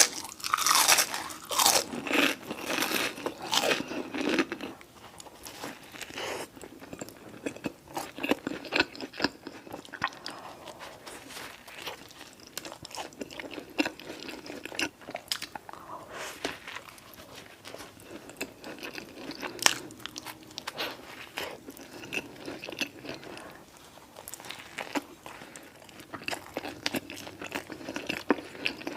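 A person chewing mouthfuls of chili cheese dog close to the microphone, a dense run of sharp little clicks and crackles. Louder for the first four seconds or so, then softer steady chewing.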